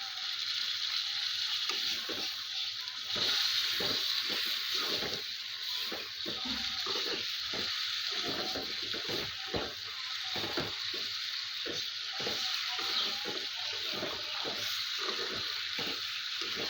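Food sizzling in a pan, a steady hiss with many short knocks and scrapes of a utensil from about a second and a half in.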